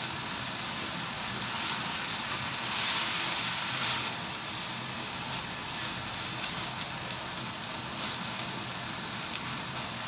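Vegetables sizzling as they are stir-fried in a non-stick wok, with a spatula scraping and tapping against the pan as they are turned. The sizzle swells briefly about three seconds in.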